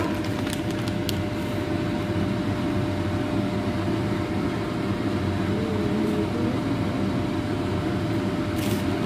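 Steady low mechanical hum with a faint steady tone in it, like a running kitchen appliance or fan, with a few light clicks about a second in and again near the end.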